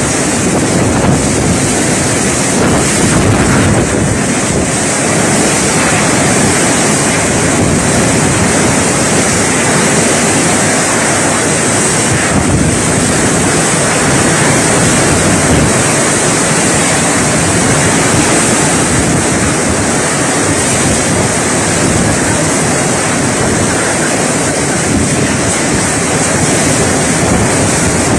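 Cyclone-force wind and wind-driven rain lashing trees, with wind buffeting the microphone: a loud, steady rush that does not let up.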